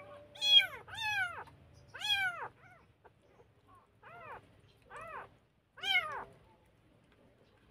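Very young kitten mewing while being hand-fed milk: about seven short, high cries, each rising then falling in pitch, with a pause in the middle.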